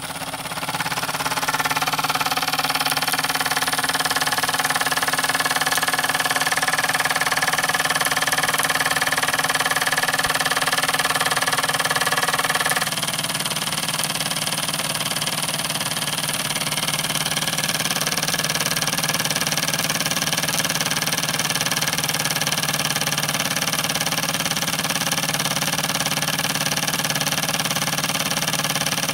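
Wilesco D10 toy stationary steam engine running steadily at speed, a continuous fast mechanical clatter, with its vibration rattling the base on the ceramic tile it sits on. The sound grows louder over the first second or two, and its higher part drops away abruptly about halfway through.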